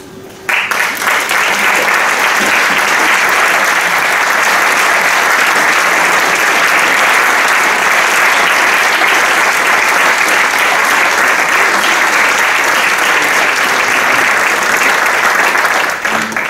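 Audience applauding, with rondalla members on stage clapping along; the clapping starts suddenly about half a second in, holds steady and dies away near the end.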